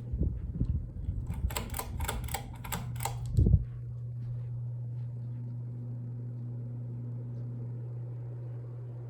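Home Depot Trice ceiling fan running with a steady low motor hum. In the first few seconds a quick run of sharp clicks and knocks, about four a second, ends in one loud thump.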